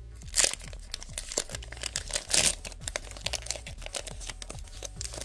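Foil wrapper of a Pokémon booster pack crinkling as it is torn open, with two louder crackles about half a second and two and a half seconds in.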